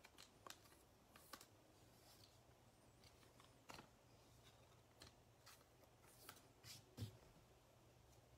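Near silence broken by faint, scattered clicks and rustles of trading cards being handled and laid down on the table.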